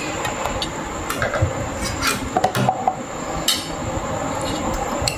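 Metal fork and spoon clinking and scraping against a plate of rice and fish while eating: several light clinks, bunched in the middle.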